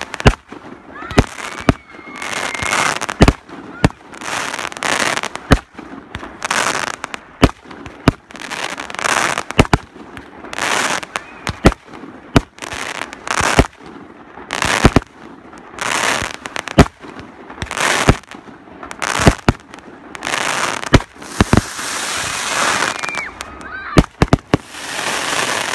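Aerial fireworks shells bursting in a steady barrage, a sharp bang about every second, each followed by a short rush of crackling noise.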